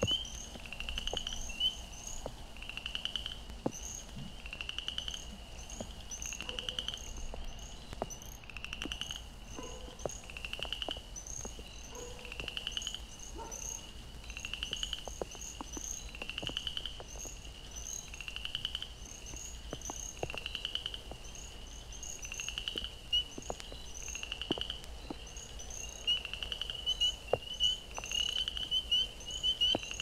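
Winter chorus of Florida chorus frogs and spring peepers calling incessantly: high rising peeps about once a second over rasping, pulsed chorus-frog trills. Raindrops tick on the microphone, and a few faint dog barks come in the middle.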